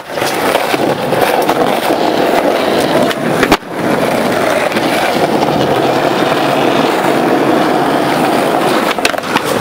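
Skateboard wheels rolling on rough asphalt, a loud continuous grinding rumble, broken by a sharp clack about three and a half seconds in and a few more clacks near the end.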